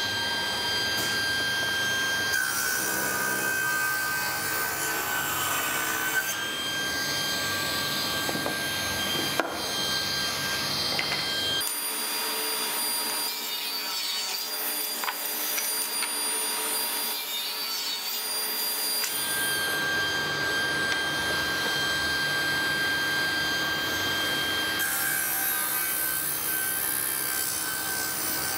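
Laguna Fusion 3 hybrid table saw ripping thick wooden boards, the blade cutting steadily through the wood with a steady high whine. The sound shifts in character a few times, at about twelve, nineteen and twenty-five seconds in.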